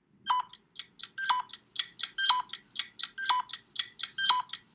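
Short electronic music cue of quick, bright beeping notes, about four a second, with a stronger note about once a second: a waiting jingle that plays while the child guesses the answer.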